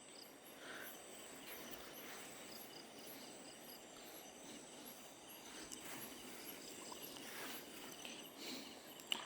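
Faint chorus of night insects: a steady high whine with small high chirps repeating about twice a second over a soft background hiss.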